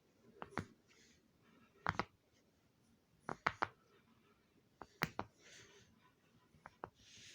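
A fidget toy clicking under the fingers: sharp clicks in pairs or triplets about every second and a half, with soft rustling and scraping between them.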